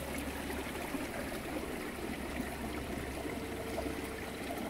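Mountain stream babbling and trickling steadily over rocks.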